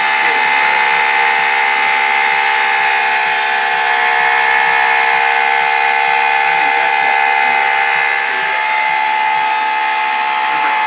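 Homemade CNC machine running, its motor giving a steady whine made of several held tones that does not change.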